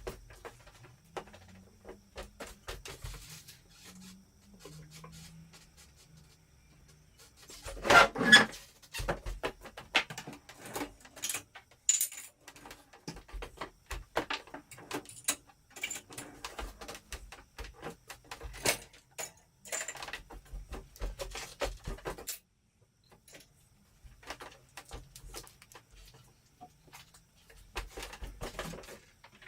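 Irregular clicks, knocks and light rattles, like small objects being handled, with a louder clatter about eight seconds in.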